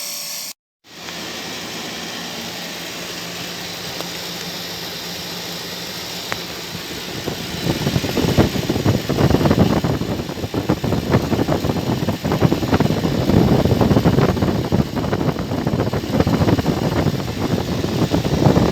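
A machine running with a steady low hum; from about seven seconds in, a louder, rough rushing noise joins it.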